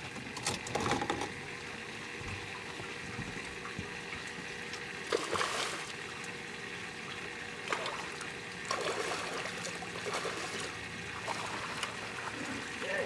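Water trickling and splashing, with several louder splashes and a faint steady hum underneath.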